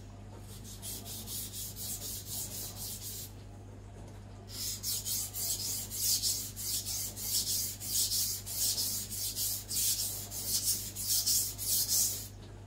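Steel chef-knife blade rubbed back and forth across a wet Naniwa Aotoshi 2000-grit whetstone, a rapid run of gritty rasping strokes. The strokes pause for about a second some three seconds in, then resume louder until just before the end.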